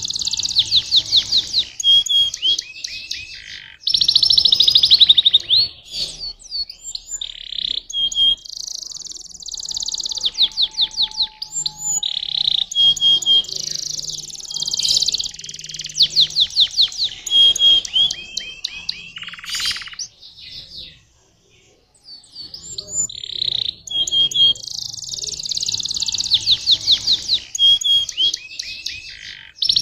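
Domestic canary singing: long phrases of rapid trills and rolling warbles, with a short pause about two-thirds of the way through.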